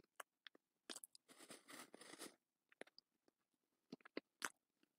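Faint chewing and mouth clicks of a person eating an oatmeal peanut butter cookie close to a microphone, with a short noisy rustle lasting about a second, starting about a second in.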